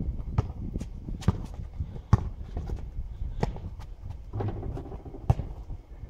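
Basketball bouncing on an asphalt court: a string of sharp, irregular bounces with sneaker footsteps between them. The loudest bounce comes about two seconds in, and another loud knock about five seconds in.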